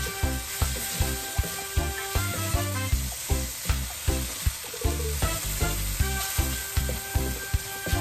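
Chicken sizzling in oil in a stainless steel wok as it is stir-fried with a wooden spatula, under background music with a steady beat.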